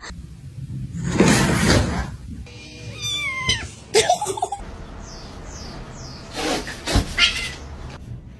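A cat's voice: a falling meow about three seconds in, between short noisy bursts and a sharp knock.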